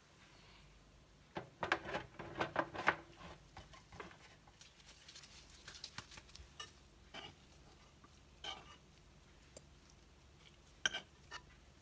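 Food-preparation handling sounds: a burst of light taps and clicks about a second and a half in as gloved hands handle dough on a plastic steamer tray, then scattered single clicks of a metal spoon against dish and pan as it scoops meat filling.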